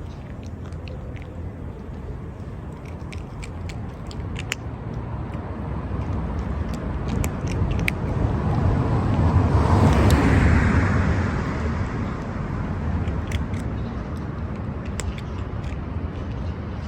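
A vehicle passes by, swelling to its loudest a little past the middle and then fading. Throughout, a cat chews its food with small, sharp crunching clicks.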